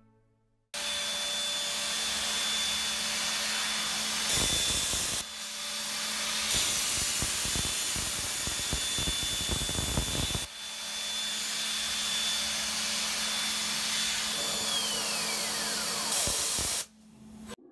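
CNC milling spindle cutting an eyeglass frame out of a plastic blank: a loud, steady machining noise with a high whine and a low hum, starting suddenly. Near the end the whine falls in pitch as the spindle winds down, and the noise then cuts off.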